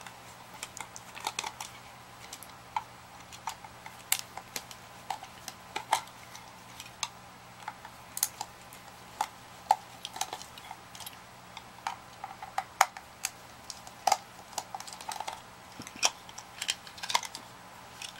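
Irregular small clicks and taps of a CPAP machine's plastic blower housing being taken apart by hand, with screws and parts being handled, over a faint steady hum.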